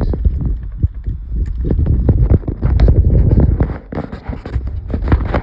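Dense, irregular knocks, clicks and rubbing close to the microphone, with a heavy low rumble: handling noise as wires and plastic connectors are moved about.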